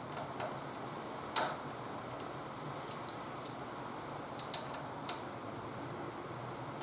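Scattered light metallic clicks and ticks from hand tools working on the front axle pinch bolts of a motorcycle fork, with one sharper click about a second and a half in, over a steady background hiss.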